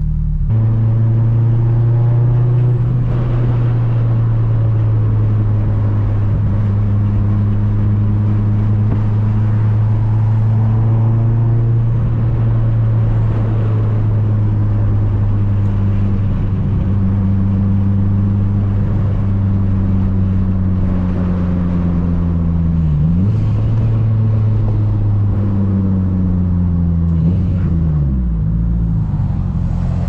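Turbocharged inline-four of a modified Mitsubishi Lancer Evolution VIII droning steadily at cruising speed, heard from inside the cabin. Its pitch dips sharply and comes back up about two-thirds of the way through, and twice more near the end.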